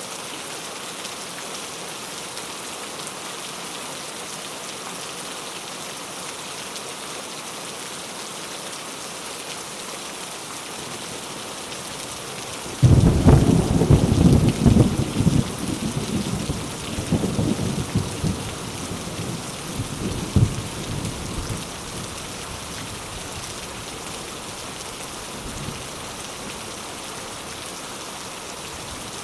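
Steady rain falling, with a thunderclap that breaks suddenly about halfway through and rumbles on for several seconds in a few rolling peaks before dying back into the rain.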